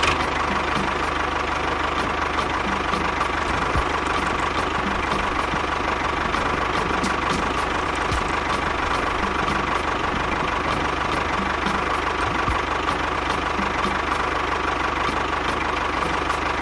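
Small motor of a DIY model construction machine running steadily, a continuous mechanical whirr with faint, rapid, regular ticking.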